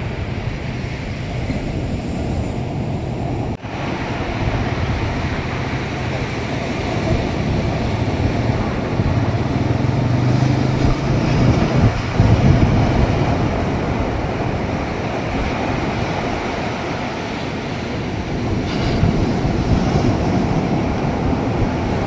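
Sea surf breaking and washing up a sandy beach, a steady low rushing noise that swells louder about halfway through.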